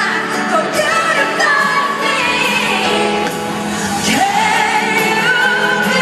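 Female pop singer performing a slow ballad live over band accompaniment, with long, wavering held notes, heard from the seats of a large arena.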